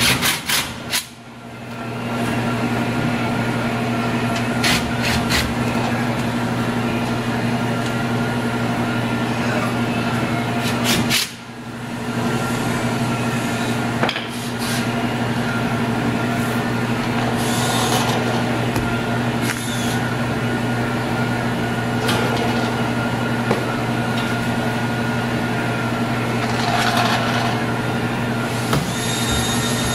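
A steady machine hum with scattered clicks and knocks as parts of a vending machine are handled. Near the end comes a short scrape as a wire product tray is slid out of the cabinet.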